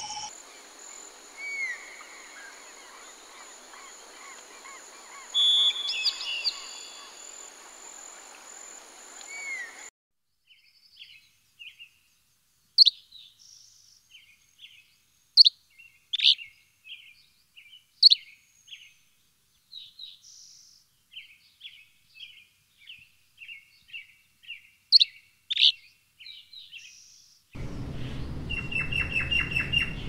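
Birds calling in three stretches. First, songbird calls over a steady high ringing drone. Then, from about ten seconds in, a clean run of short sharp chirps and call notes, a few much louder than the rest. Near the end comes a noisier stretch of rapid chattering calls over a low rumble.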